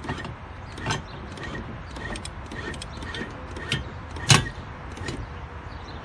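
Electric anchor winch hauling a stainless steel anchor up to the bow roller, with a run of clicks and metal knocks. The loudest clank comes a little past four seconds in.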